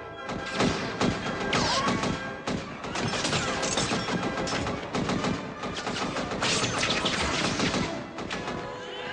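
Action-scene soundtrack: a dense, continuous barrage of bangs and crashes over music.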